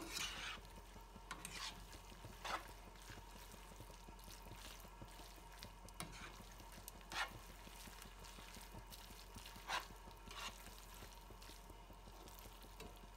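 Metal kitchen tongs tossing spaghetti and shrimp in a frying pan: soft wet stirring with light clicks of the tongs against the pan now and then, over a faint steady sizzle.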